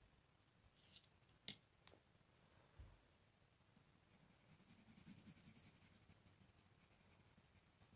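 Faint, quick back-and-forth scratching of a colored pencil shading on paper, starting past the halfway point, preceded by two light clicks about a second and a half in as the pencil is handled.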